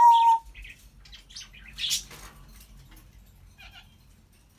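African grey parrot vocalizing: a loud whistle held for about half a second at the start, then a scatter of short chirps and clicks with a harsher noisy call about two seconds in, trailing off quieter toward the end.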